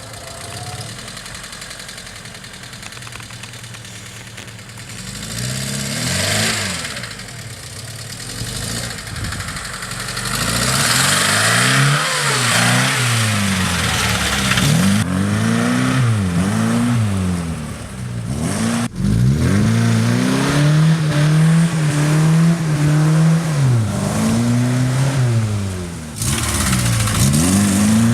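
VAZ-2106 car's four-cylinder engine revved hard again and again, its pitch climbing and dropping every second or two. It is quieter for the first few seconds before the revving starts.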